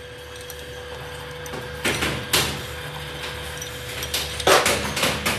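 Steady low hum of workshop machinery, with short scraping, sliding noises of parts being handled on a metal machine table, twice about two seconds in and several more near the end.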